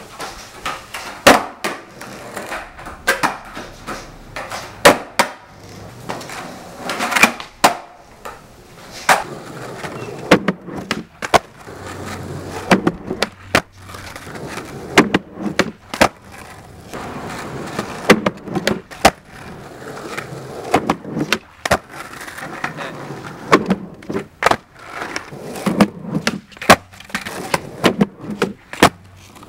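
Skateboard tricks on concrete: repeated sharp clacks of the board's tail popping and the deck landing, often in quick pairs, with the wheels rolling between them.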